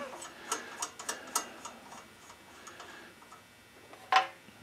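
Ratchet wrench clicking in a few short strokes on the head bolts of a single-cylinder flathead engine as they are checked for tightness, then a single louder knock about four seconds in.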